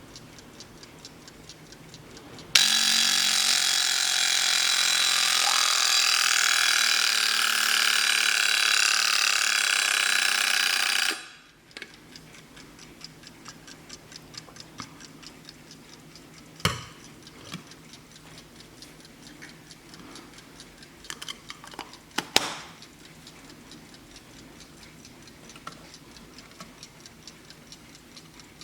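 Vintage German Blessing alarm clock ticking. About two seconds in its alarm goes off, rings loudly for about nine seconds and stops abruptly. The ticking then carries on, with a few clicks later on.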